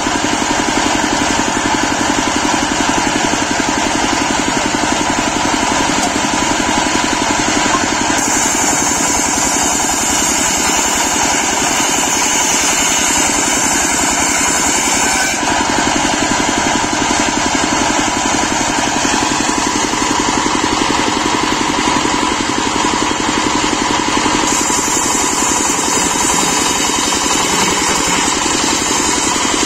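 Stationary engine running steadily, belt-driving a table circular saw as a teak log is fed through the blade. A higher hiss joins from about eight to fifteen seconds in and again near the end.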